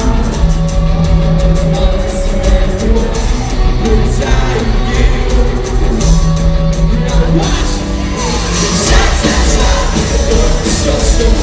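Live rock band playing at full volume, with a sung vocal over drums and held instrument notes, in a large arena.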